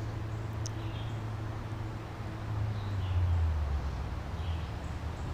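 Quiet woodland creekside ambience: a low steady rumble that swells about three seconds in, with a few faint bird chirps.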